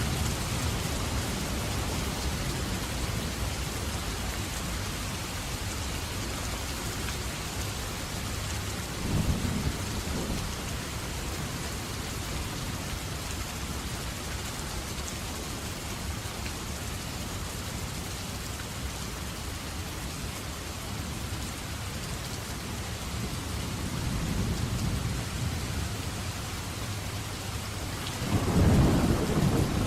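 Steady rain falling, with thunder rumbling: a short rumble about nine seconds in, a fainter one later, and a louder roll starting near the end.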